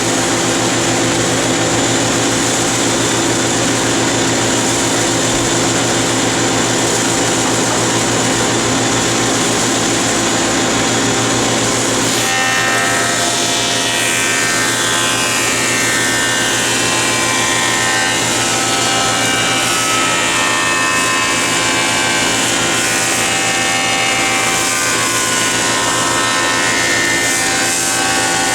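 Stationary woodworking machinery and a dust collector running steadily; about twelve seconds in, a cut into hard maple begins and adds a set of higher whining tones that carry on.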